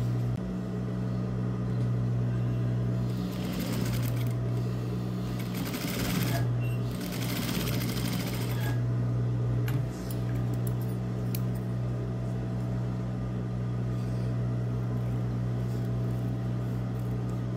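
Industrial sewing machine: its motor hums steadily, and it stitches in two short runs a few seconds in, with a fast needle rattle, while sewing a narrow fabric strip into a thin tube.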